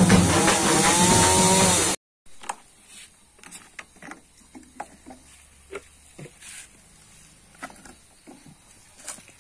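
Intro music that cuts off abruptly about two seconds in, then scattered light clicks and knocks of hands handling a Stihl MS250 chainsaw's fuel filler and a plastic funnel.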